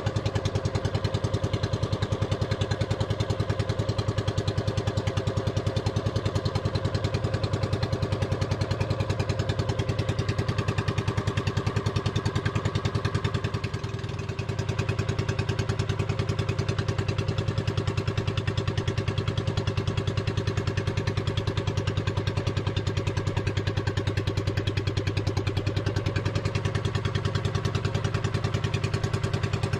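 Small inboard engine of a motorized outrigger boat (bangka) running steadily underway, with a fast even pulse. It dips briefly about halfway through.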